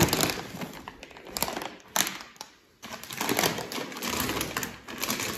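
Crinkly plastic packaging handled and rustled, with scattered sharp clicks and crackles and a brief pause about halfway through.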